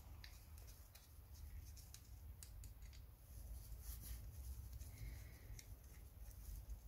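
Faint, scattered clicks and light taps of small tools and parts being handled, over a low steady rumble.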